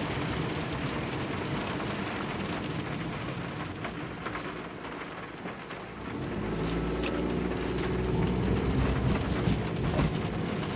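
Rain on a car's windshield and body heard from inside the moving car, with tyre and road noise. About six seconds in, the low engine and tyre rumble rises, and scattered sharp drop taps stand out near the end.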